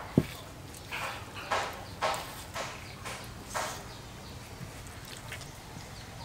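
Knife slicing membrane and fat off a raw beef leg: a sharp knock against the wooden board just after the start, then about six soft scraping strokes roughly half a second apart.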